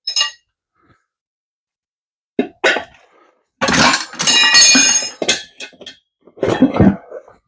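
Rubber squeaking and scraping as a dirt-bike inner tube is pulled out from inside the tire, with a few sharp knocks. The longest, loudest squeal comes about halfway through.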